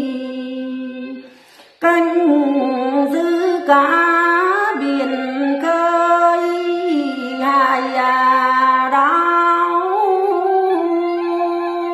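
A woman singing a Tày folk song in the then style, holding long notes, with a short break for breath about a second and a half in.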